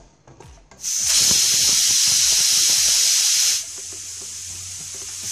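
Pressure cooker whistling: steam hisses out loudly past the weight valve for about three seconds once the cooker is at full pressure, each whistle being counted towards the cooking time. A low hum follows, and another whistle starts at the very end.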